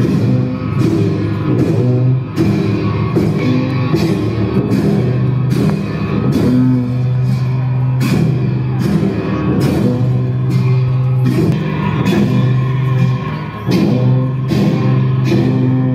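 Tibetan Buddhist monastic ritual music for a cham mask dance: long horns hold a steady low drone, breaking off briefly every few seconds, while cymbals crash in a steady beat over it.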